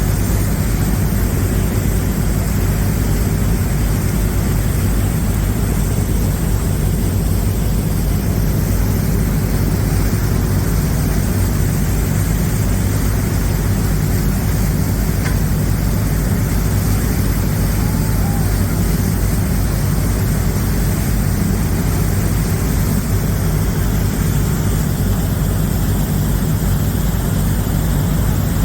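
Tour catamaran's engines running with a steady low drone, heard on board while under way.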